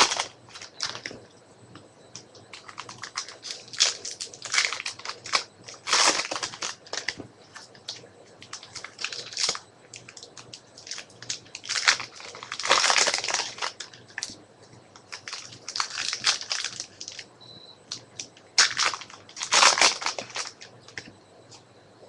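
Trading card pack wrappers being torn open and crinkled by hand, in irregular bursts of crackly rustling every few seconds.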